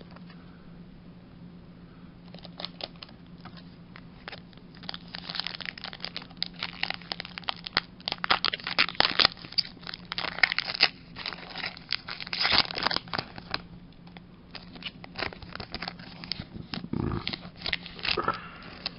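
Crinkling and rustling of thin plastic card sleeves and packaging being handled, a dense, irregular crackle that builds a couple of seconds in, is busiest in the middle and thins out near the end.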